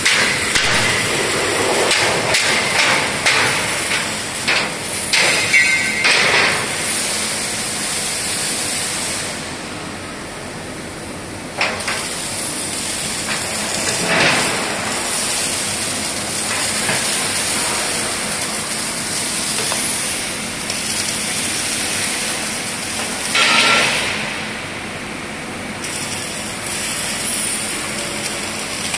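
Steel-fabrication workshop noise: the hiss and crackle of MIG welding on steel beams, with sharp metallic knocks coming thick and fast during the first several seconds.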